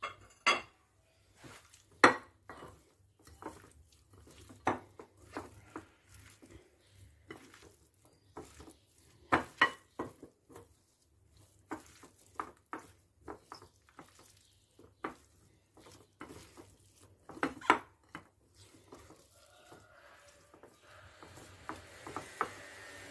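Hands mixing raw meat into a chopped-herb marinade in a ceramic bowl: rubbing and handling noises with irregular knocks and clinks against the bowl, a few of them sharp and loud.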